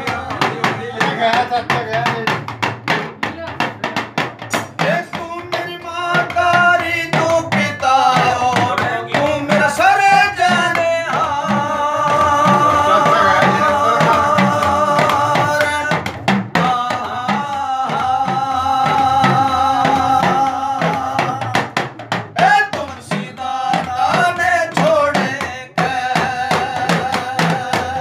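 Men singing a devotional bhajan over fast, steady drumming on rope-tensioned dholak hand drums. Long held sung notes come around the middle, while the drum strokes keep going throughout.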